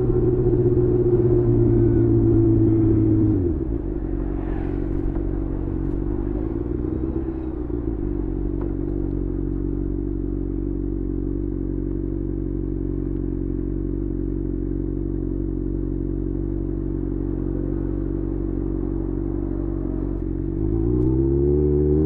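Kawasaki ZX6R inline-four with a Leo Vince aftermarket exhaust, revs falling at first and dropping to a steady low idle about three and a half seconds in. Near the end the revs climb again.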